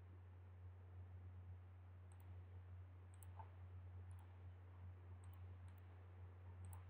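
Near silence: a steady low hum with several faint computer mouse clicks scattered through.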